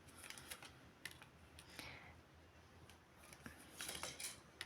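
Faint scattered light clicks and soft rustles of cards being handled, a little busier near the end.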